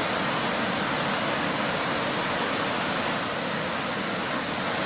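Steady rush of a tall mountain-brook waterfall, running full with wet-snow melt.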